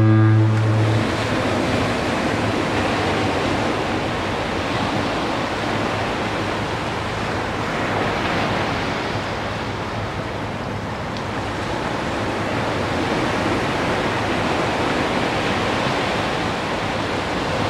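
Surf breaking and washing up a sandy beach: a steady wash of noise that swells and eases slowly. A low foghorn blast, one deep steady tone, cuts off about a second in.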